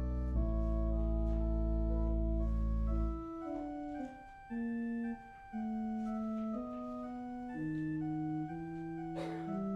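Church organ playing: a full held chord with deep pedal bass until about three seconds in, then a lighter passage of moving notes without the bass.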